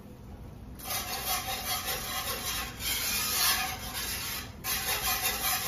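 Wire whisk scraping against the bottom of a cast-iron skillet as chickpea flour is whisked into hot oil and coconut cream to make a roux. The scraping starts about a second in and carries on steadily, with a short break near the end.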